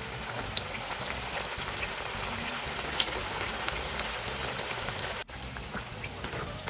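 Flattened green plantain slices (patacones) frying in hot oil on their second fry: a dense, steady sizzle with many small sharp crackles. It breaks off for an instant about five seconds in.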